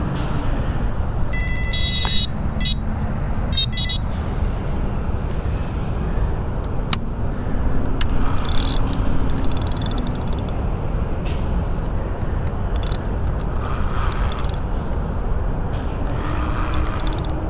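Steady rumble of road traffic with vehicles passing now and then. A short high-pitched chirping sound comes about two seconds in, and brief scraping and rustling sounds come in the middle and near the end.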